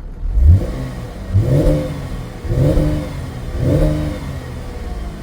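2015 Chevrolet Camaro engine revved four times in quick blips, each rising then falling back, with the engine running between them. It has a cylinder 1 misfire that a scan tool finds but the ear misses: it sounds pretty good.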